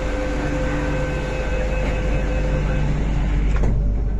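Interior of an MTR Q-train standing at a station with a steady low hum and station noise, and a few steady tones sounding until nearly three seconds in. The doors shut with a short knock about three and a half seconds in, after which the sound turns duller as the outside noise is closed off.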